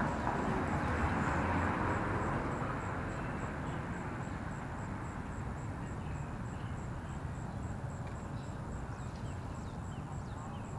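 A car passing on the street, its noise loudest at first and fading away over the first few seconds into a steady outdoor background, with a few faint high chirps near the end.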